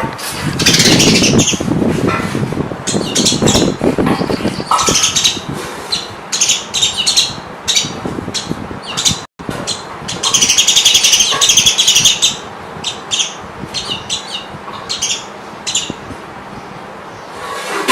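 Canary singing: bursts of rapid high chirps and trills, broken off by a sudden brief silence about nine seconds in.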